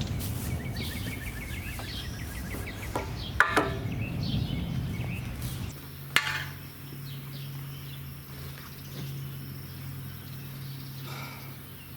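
Birds chirping over rumbling outdoor background noise, with a couple of sharp clicks; about halfway through a steady low hum comes in and holds.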